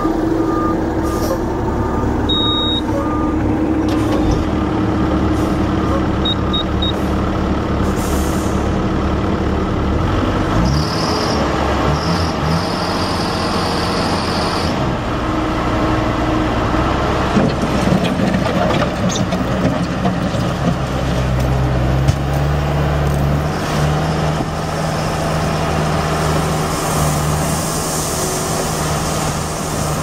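Four-cylinder turbo diesel of a 2005 Bobcat T180 compact track loader running under load as the machine tracks and works its bucket, engine speed changing a few times. A backup alarm beeps during the first few seconds. Gravel pours out of the bucket near the end.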